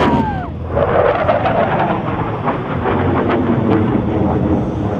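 Military fighter jet flying past at an airshow: a whine that falls in pitch in the first half second as it goes by, then a loud crackling rumble of jet engine noise.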